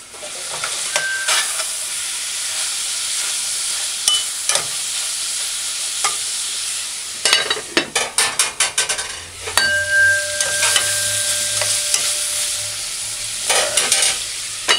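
Ackee and saltfish with sweet peppers sizzling in a metal pot on the stove, a steady frying hiss. From about halfway come quick metal clatters and scrapes against the pot, with a thin whistling tone for a few seconds in between and a few more clatters near the end.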